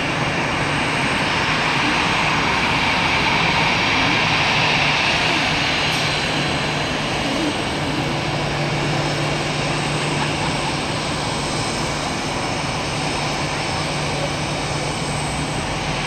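Boeing 747 freighter's jet engines running as it moves along the runway: a steady, loud rush with a high whine that fades after about six seconds and a low hum underneath.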